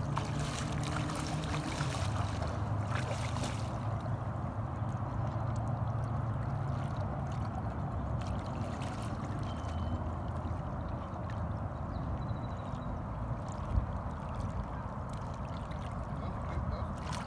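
River water lapping at a gravel bank under a steady low rumble, with a few brief splashes or knocks in the first few seconds.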